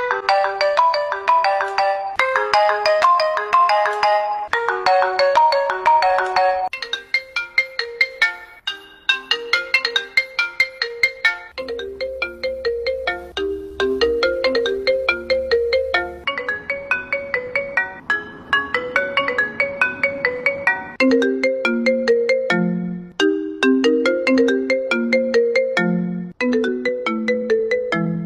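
A series of iPhone ringtones playing one after another, each a short, bright, repeating melody that switches to a different tune every few seconds.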